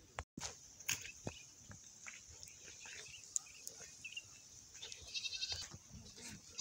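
Goat bleating about five seconds in, a rapidly pulsing call, with another starting near the end, over scattered light knocks and clicks.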